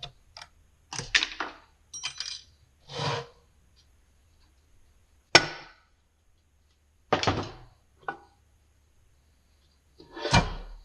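Separate metal clinks and knocks of hand tools on the NV273F transfer case's internal parts as its planetary snap ring is worked out. There is a sharp clink about five seconds in and a heavier thud near the end.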